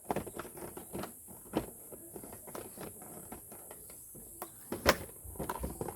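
A doll's box being handled and opened: irregular crackling, rustling and clicks of the packaging, with one sharper snap a little before five seconds in.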